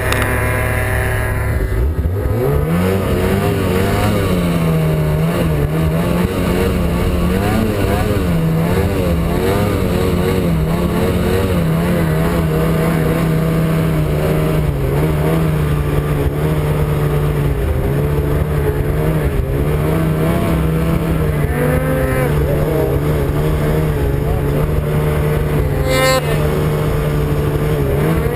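Snowmobile engine running hard under load. Its revs climb over the first couple of seconds, then hold high with the pitch wavering up and down as the throttle and load change.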